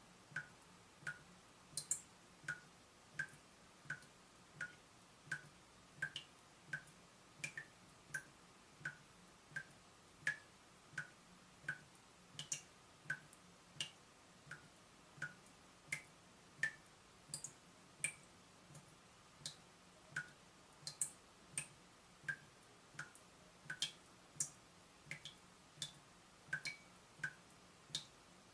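Water dripping steadily from a leaking tap, one drop about every two-thirds of a second, each a short plink.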